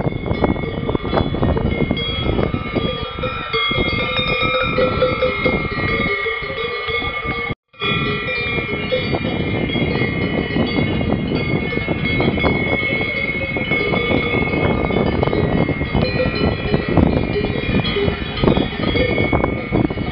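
Several cowbells on a grazing herd clanking continually at different pitches. The sound drops out for a moment about seven and a half seconds in.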